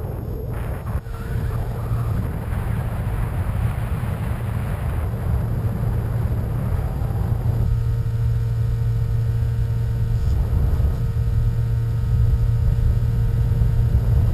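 Skywalker 1900 RC plane's electric motor and propeller running steadily in flight, a low drone mixed with wind rush. Heard from the onboard camera, the sound changes slightly at a cut about eight seconds in.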